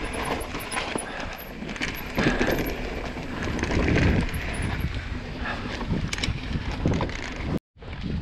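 Mountain bike riding down a rough dirt trail: tyres rolling and skidding over the ground while the chain and frame rattle and clatter. The sound drops out completely for a moment near the end.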